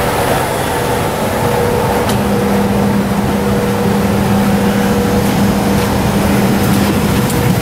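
Steady rush of air and machinery hum inside the cabin of a CRJ-700 regional jet parked at the gate, with a steady low tone that comes in about two seconds in and drops away near the end.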